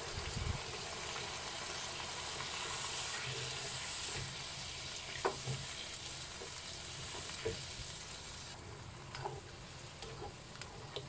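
Chicken in soy sauce sizzling in a wok on a gas flame while a spatula stirs it, with a few short scrapes and knocks of the spatula against the wok. The hiss of the sizzling drops off about two thirds of the way through.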